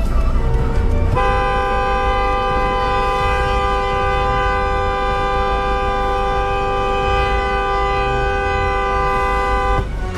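Car horn held down in one long, unbroken two-note blast of about eight seconds, cutting off near the end, over the low rumble of idling traffic. It is an angry protest honk at a driver holding up the line at the intersection.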